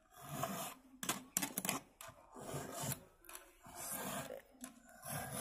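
A chainsaw file rasping across the cutters of a chainsaw chain in repeated strokes, about one a second: hand-sharpening the chain.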